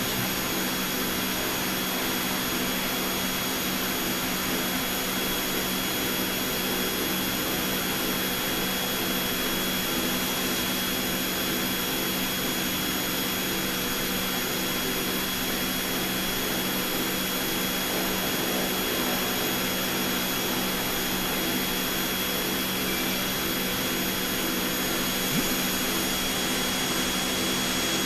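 Cone calorimeter's blower and analyser equipment running: a steady whirring hum with a thin constant high tone, unchanging throughout.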